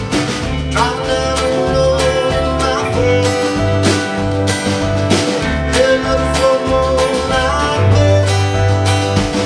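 Live band playing a country-rock song: acoustic and electric guitars over a steady drum beat.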